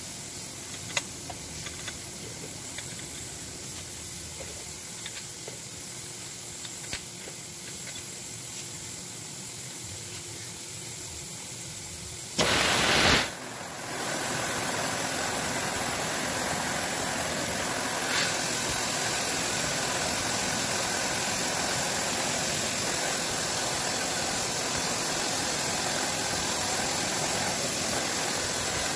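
CNC milling machine spindle running as it center-drills and then drills holes in round metal parts held in a vise: a steady machine noise with a hiss. Roughly halfway through there is a brief loud rush and a sudden dip, after which the running noise is louder and fuller.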